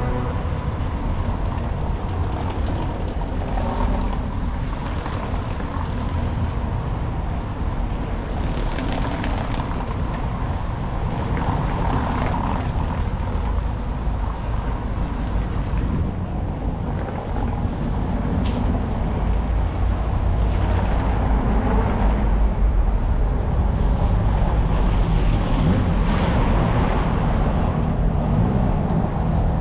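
City street ambience: road traffic going by with a steady low rumble and a few louder passes, growing slightly louder in the second half.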